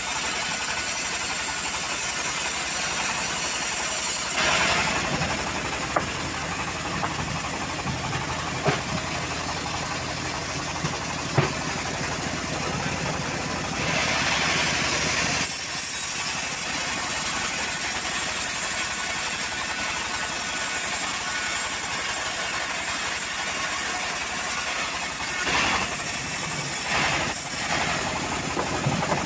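Homemade band sawmill running, its blade ripping a teak board lengthwise, with a few sharp clicks partway through. About halfway in there is a brief hiss as water is squirted onto the blade.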